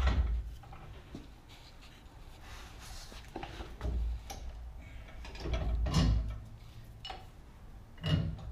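Scattered metal clunks and knocks with some scraping as a rear differential and its mounting hardware are worked into place under a car, the loudest and longest about six seconds in.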